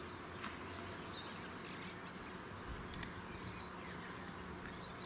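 Faint outdoor background with small birds chirping now and then, and a few soft clicks.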